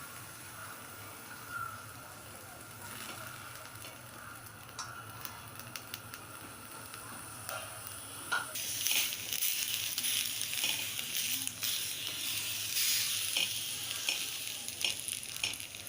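Green chillies sizzling as they dry-roast on a hot tava (flat iron griddle), with light clicks and scrapes as they are turned. The sizzling grows clearly louder about halfway through.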